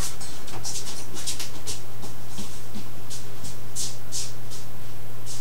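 Soft, scattered rustles and scuffs of someone rummaging out of sight, over a steady low hum.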